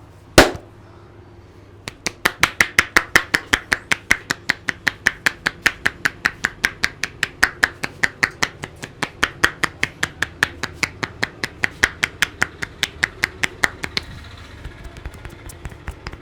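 One loud sharp smack, then a fast, even run of hand strikes on a head during an Indian head massage, about five a second, which turn fainter near the end.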